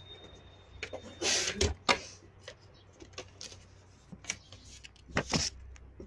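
Rustling and light knocking handling noises in short scattered bursts, the loudest about a second in and again about five seconds in.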